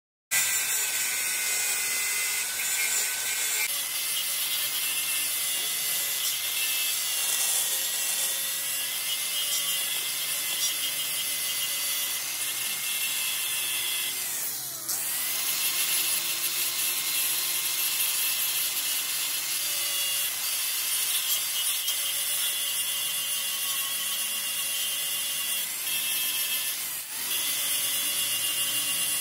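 A power tool working metal: a steady high hissing with a constant whine, broken off briefly twice.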